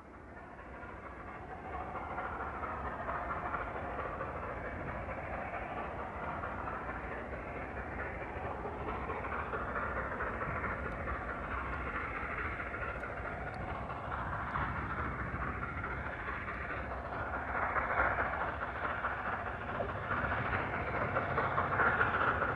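LNER A4 Pacific steam locomotive Union of South Africa working a passenger train, its exhaust and running noise fading in and growing louder as it approaches.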